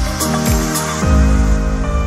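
Background music: sustained chords over a drum beat of about two low hits a second with light high ticks. The beat drops out about halfway through, leaving the held chords.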